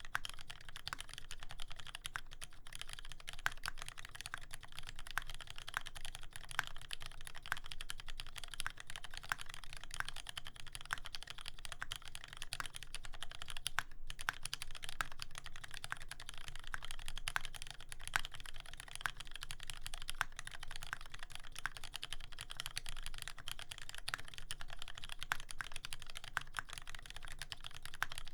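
Continuous typing on a TX84v2 custom mechanical keyboard with a brass plate, lubed Retooled Black 70 g linear switches and GMK keycaps: a fast, steady stream of keystrokes with one brief pause about halfway through.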